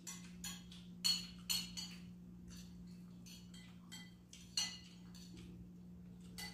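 Spoons clinking and scraping against bowls as two people eat, a string of short irregular clinks, over a steady low hum.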